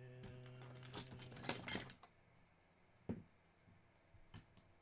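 Trading card being slid into a rigid plastic top loader: scraping plastic clicks about one to two seconds in, then two sharp separate clicks later on. A held, drawn-out hum of voice runs under the first two seconds.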